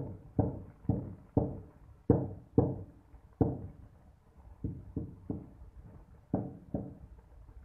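A hammer tapping a black granite floor slab to bed it down into its mortar. About a dozen sharp knocks come in uneven runs of two or three, each dying away quickly.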